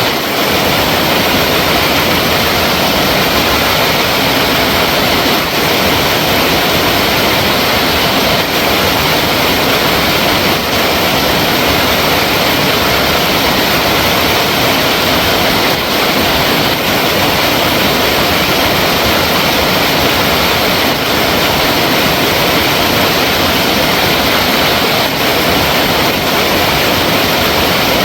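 Flowing water rushing loudly and steadily, a continuous even wash of sound without any change.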